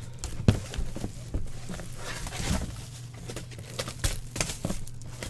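Cardboard and plastic packaging being handled: irregular taps and knocks, with a stretch of crinkling about two seconds in.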